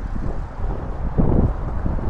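Wind buffeting the uncovered microphones of an Insta360 X4 camera, with no foam wind covers fitted: a low, uneven rushing that grows louder a little past a second in.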